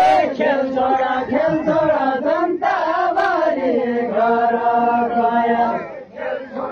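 A large crowd of villagers chanting a song together in unison, many voices holding long notes, with a short break about two and a half seconds in and a dip near the end.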